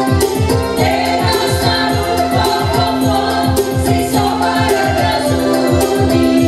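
A group of women singing together into microphones through a PA, backed by a Technics KN7000 arranger keyboard playing a steady electronic beat with a held organ-like tone.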